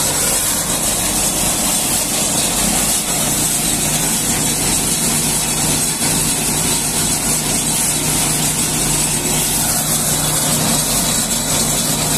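Tractor-driven straw blower running steadily, its fan drawing wheat straw through a flexible suction hose and blowing it up a delivery pipe, a loud rushing hiss over the low steady hum of the Sonalika Tiger DI 55 tractor engine driving it.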